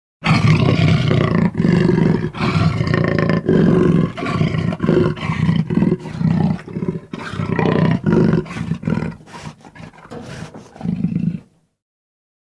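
A large animal giving a long run of deep calls, each under a second long and closely spaced, growing softer in the last few seconds before one last louder call, then stopping abruptly.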